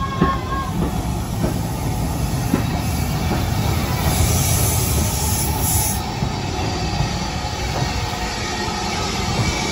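Southern Railway U class 2-6-0 steam locomotive 31806 rolling slowly past tender-first, a steady low rumble of wheels on rail with a few clanks in the first seconds. A hiss of steam rises about four seconds in and lasts some two seconds.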